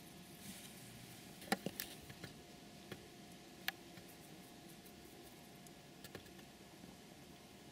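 Faint steady hiss broken by a few sharp clicks and taps, a quick cluster about one and a half to two seconds in, single ones near three and four seconds, and two small ones near six seconds.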